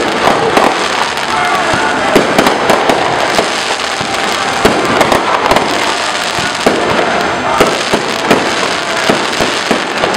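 Fireworks display: aerial shells bursting in quick succession, with many sharp bangs over a dense, continuous crackle from glittering crackling stars.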